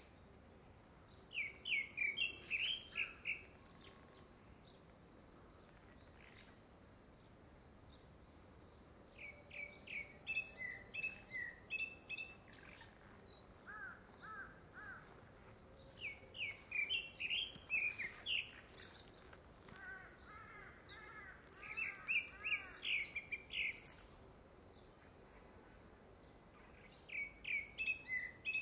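Grey-backed thrush singing: phrase after phrase of quick whistled notes, each phrase lasting a few seconds with short pauses between. The uploader takes it for a courtship song ahead of a second brood.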